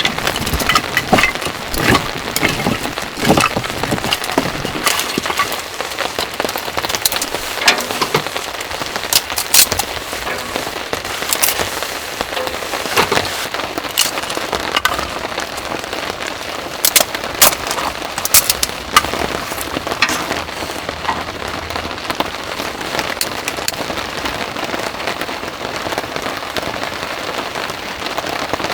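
Heavy rain falling: a steady patter with many sharp, close drop strikes scattered through it, some of them loud.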